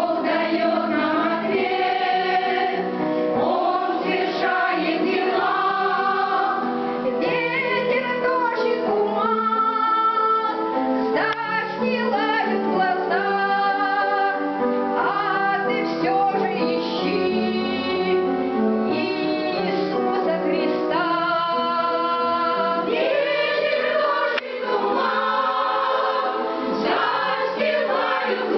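Church choir singing a sacred song in held, chord-like phrases, with the women's voices most prominent.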